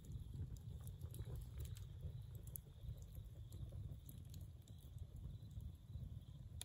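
Wood fire burning in a stone fire ring, crackling with scattered small pops over a steady low rumble.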